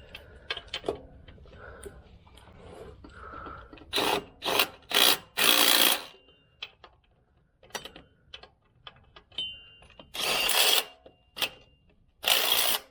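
Ratchet run in short bursts of rapid clicking while tightening the starter's mounting bolts: a cluster of four bursts about four seconds in, another around ten seconds, and one more at the end, with light metal clinks between.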